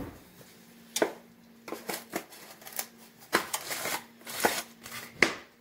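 A plastic spice bottle and its cap being handled: a run of short scratchy clicks and rattles, irregular and several close together at times.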